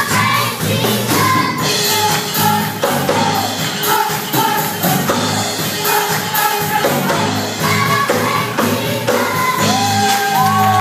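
Children's choir singing an upbeat gospel song over band accompaniment with a steady beat. Near the end, audience whoops and shouts start to rise over the music.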